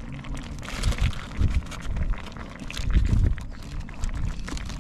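Wind buffeting the microphone in uneven gusts, loudest about three seconds in, with scattered light clicks and knocks as vegetables are tipped into a cast-iron potjie pot.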